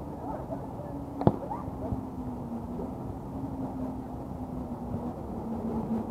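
A beach volleyball struck once by a hand, a single sharp slap about a second in, over a steady low motor hum.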